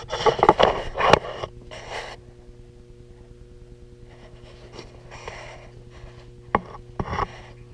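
Handling noise as a small action camera is picked up and moved around: rustling and scraping with sharp clicks, loudest in the first second and a half, and two more clicks near the end. A steady low electrical hum runs underneath.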